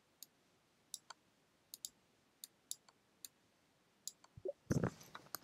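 Faint, sharp computer mouse clicks, about eight spread over the first three seconds, then a louder brief jumble of noise near the end.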